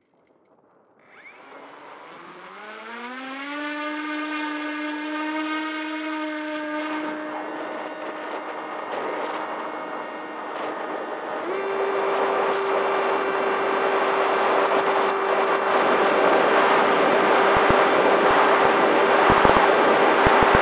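Electric motor and propeller of a Volantex Ranger 1600 RC plane, heard from a camera on board: the motor spools up with a rising whine about a second in, holds a steady pitch, then steps up to a higher steady whine about halfway through. A rushing air noise grows louder as the plane climbs.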